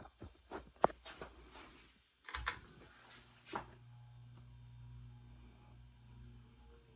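A run of sharp clicks and knocks, then from about three seconds in a steady low hum from the motor of a 52-inch Hunter Westminster ceiling fan running with its blades not yet balanced.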